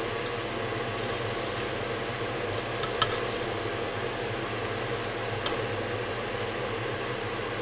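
Sugar-coated hazelnuts being stirred with a spatula in a stainless steel saucepan on the heat while making praliné, the nuts scraping and rattling against the pan, with a few sharp clicks: two close together about three seconds in and one about five and a half seconds in. A steady hum runs underneath.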